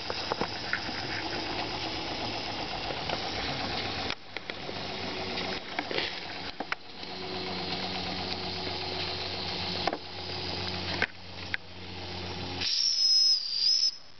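Model live-steam twin-cylinder engine running with a steady hiss of steam and a few sharp clicks. Near the end a loud high whistle sounds for about a second.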